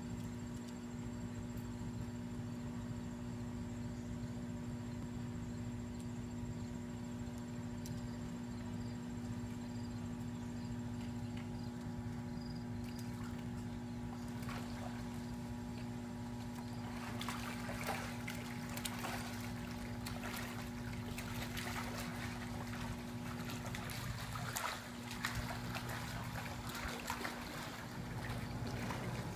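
Pool water splashing and sloshing as a black Labrador paws at a floating foam board and scrambles onto it. The splashing grows busier a little past halfway. A steady low hum runs underneath.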